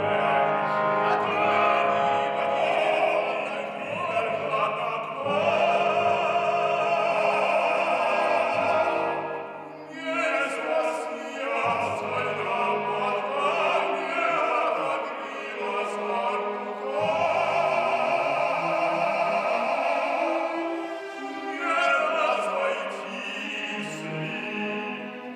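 Operatic baritone singing in Russian over a full symphony orchestra, the strings sustaining beneath the voice, with a brief pause in the sound about ten seconds in.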